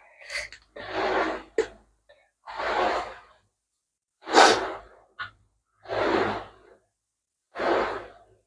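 A person's breathing close to a clip-on microphone: about five heavy breaths at an even pace, with a couple of small clicks between them.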